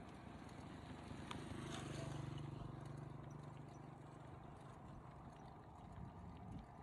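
Faint rolling and light rattling of a touring bicycle ridden along a road, with a low hum that swells and fades about a second to four seconds in.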